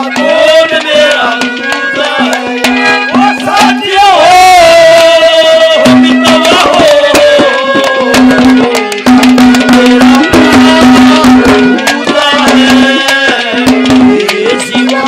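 Live Indian folk music: a hand drum beats quickly under a steady held note that stops and restarts, with a wavering, ornamented melody line above it.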